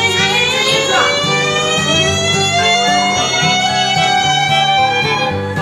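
Background music: long held notes over a bass line that changes note every second or so.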